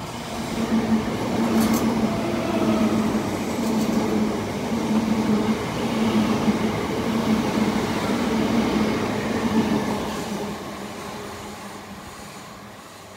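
Two coupled Class 375 Electrostar electric multiple units running past close by: a loud rumble of wheels on rail with a low electric hum that comes and goes. The sound builds within the first second, holds for about ten seconds as the coaches go by, then fades away.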